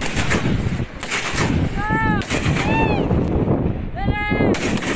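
Heavy, close gunfire: rapid rifle shots cracking one after another, with short high-pitched sounds that rise and fall about two, three and four seconds in.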